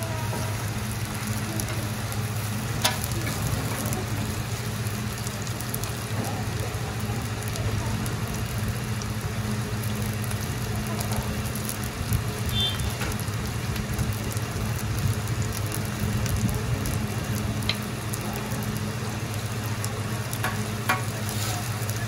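Korean seafood and green onion pancake frying in oil on a griddle, a steady sizzle with a low hum underneath and a few sharp clicks.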